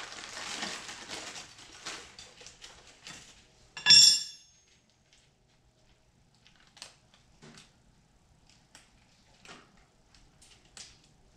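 Rustling handling noise, then about four seconds in one sharp metallic clink that rings briefly as small drum-brake hardware is handled, followed by scattered light clicks of metal parts.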